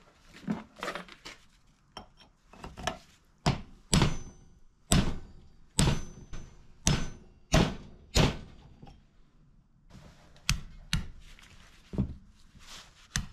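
Club hammer striking a steel pin punch to drive a roll pin out of the piston nut on a forklift hydraulic tilt cylinder. Sharp metal-on-metal blows come roughly one a second: lighter taps first, then harder blows from about four seconds in, with a short pause near the end.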